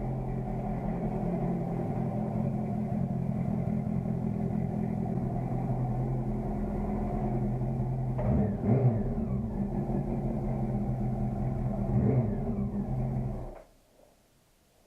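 Motorcycle engine idling steadily, blipped twice on the throttle in quick revs about halfway through and near the end, then cutting off abruptly.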